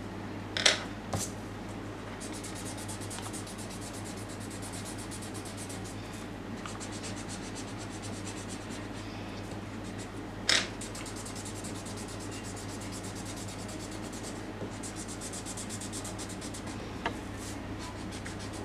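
Pencil and drawing tools rubbing and scratching across paper as a portrait is shaded, over a steady low hum. A few sharp clicks stand out: two about a second in, one a little past the middle, and a faint one near the end.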